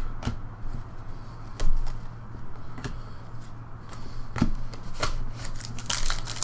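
Baseball trading cards handled and flicked through, giving scattered light taps and clicks, over a steady low hum. Near the end a card pack wrapper starts to crinkle.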